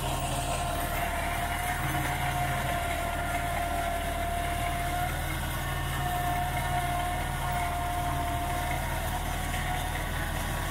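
New Holland 3630 tractor's diesel engine pulling a working Jagatjit super seeder in the field, running steadily under load with a steady whine over the engine drone; the whine briefly drops out about halfway through.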